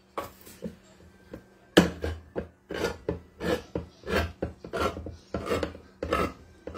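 Manual hand-crank can opener being turned around a can: a steady run of rasping, grinding strokes, about one and a half a second, starting about two seconds in.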